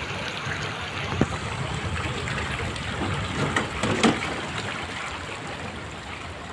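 Seawater from a sea surge rushing through a flooded street in a steady wash. Two short sharp knocks come about a second in and about four seconds in.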